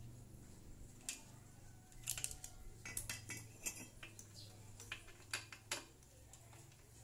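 Hand tools and metal fittings clinking while a motorcycle's rear mono-shock is bolted into place: a dozen or so sharp, irregular metallic clinks and taps over a faint steady low hum.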